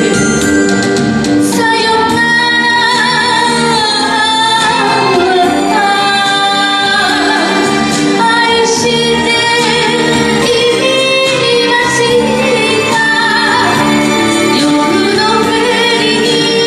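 Woman singing a Japanese kayōkyoku ballad into a microphone over instrumental accompaniment, with long held notes that bend in pitch.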